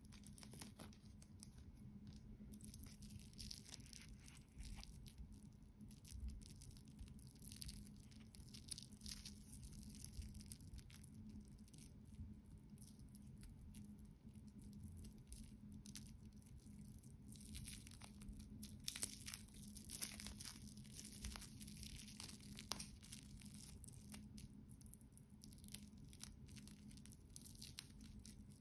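Clear plastic protective film crinkling and tearing in faint, irregular crackles as it is peeled off a metal mesh watch bracelet.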